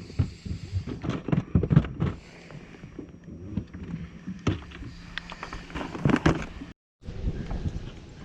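Irregular knocks and bumps on a fishing boat, over a steady low hum. The sound cuts out completely for a moment about seven seconds in.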